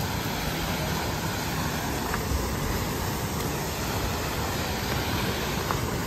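Steady, even rushing of a waterfall, with two faint clicks.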